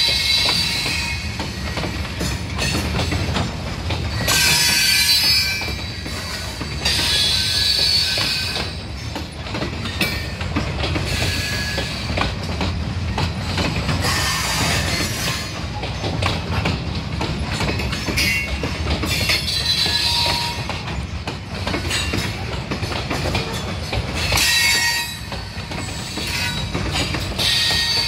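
Loaded freight hopper cars rolling past with a steady low rumble. The wheels squeal against the rails in high-pitched bursts every few seconds as the train takes a curve: metal on metal.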